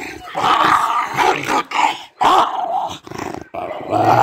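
An agitated, aggressive dog growling in a run of loud bursts with short breaks between them.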